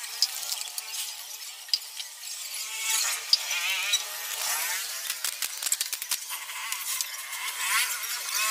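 Petrol with a little oil mixed in being poured from a plastic bottle through a tube, gurgling, amid light clicks and knocks of handling. It is the small priming charge the engine gets so it can fire without engine oil.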